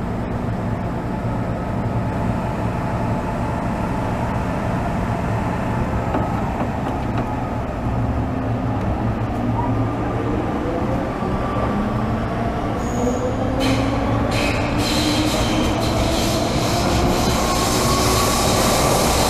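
Inside an MTR M-train car running: steady low rumble with a motor whine that climbs in pitch from about six seconds in as the train picks up speed. From about halfway, a few sharp clicks and a growing hiss of wheels on the rails join in, and the sound gets a little louder.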